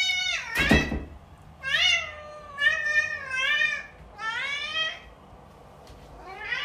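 Domestic cat meowing repeatedly: four drawn-out meows rising and falling in pitch, with a short, sharp noise just before the first.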